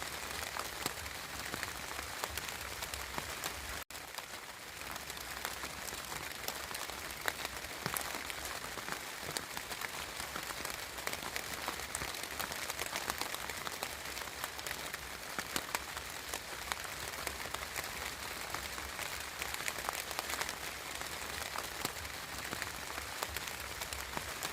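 Steady rain falling, a dense patter of fine drops, broken by a momentary gap about four seconds in.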